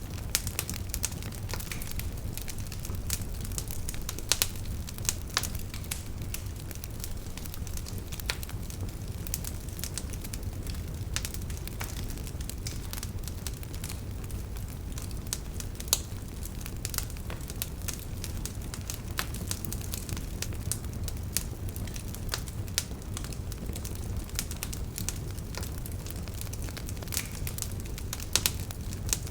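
Campfire burning: wood crackling with frequent sharp pops over a steady low rumble of the flames.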